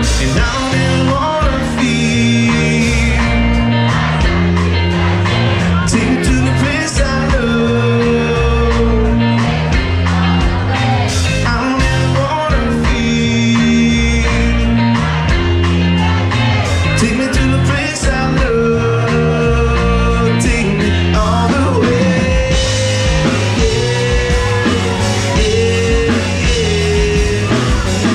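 Live rock band playing loudly, electric guitars to the fore over a steady beat.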